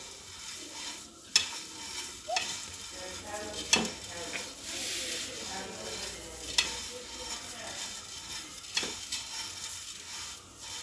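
Oiled hands rubbing and fluffing fine dry vermicelli noodles in a glazed clay dish: a steady crackly rustle of the strands, with a few sharp clicks scattered through it.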